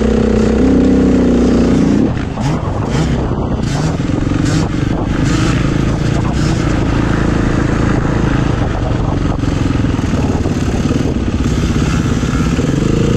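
KTM EXC enduro motorcycle engine under way: held at high revs for about two seconds, then the throttle shuts and it runs on at lower, rising and falling revs.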